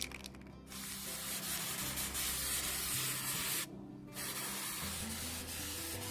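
Aerosol spray paint can hissing as white paint is sprayed onto a board, in long bursts with a short break about three and a half seconds in.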